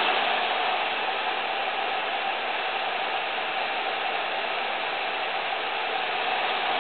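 Blower fan of a Sapphire Radeon HD 5870 graphics card running: a steady rush of air with a whine in it.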